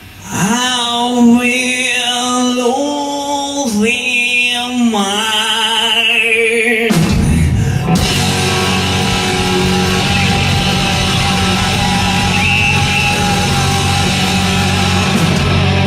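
Hard rock band playing live: a lone lead line of long held notes with heavy vibrato, then the full band comes in about seven seconds in.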